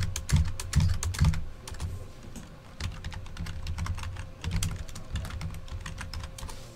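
Typing on a computer keyboard: quick runs of key clicks with dull low thuds under them. The runs are busiest in the first second and a half and again from about four to six and a half seconds in, with a sparser stretch between.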